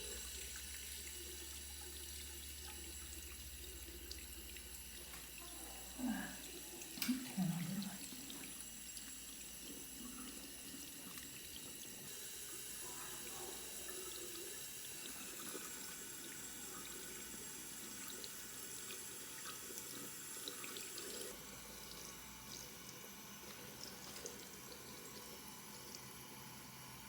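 Tap water running steadily as a clogged inkjet print head is flushed of dried ink, with a few brief louder sounds about six to eight seconds in.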